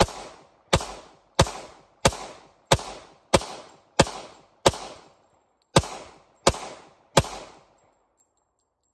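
Glock pistol fired ten times in steady succession, about two thirds of a second apart, with a slightly longer pause before the last three shots; each shot is followed by a short echo.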